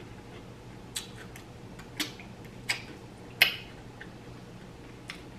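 Cooked mussel shells clicking as they are pried open and picked apart by hand: a few sharp clicks under a second apart, the loudest about three and a half seconds in.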